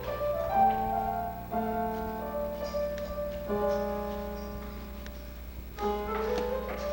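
Keyboard instrument playing slow held chords that change every two seconds or so, with a quick rising run of notes into a new chord near the end, over a steady low hum.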